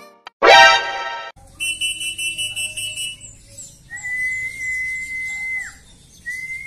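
A loud, short burst rich in tones about half a second in, then two long steady whistles, each ending in a quick downward slide.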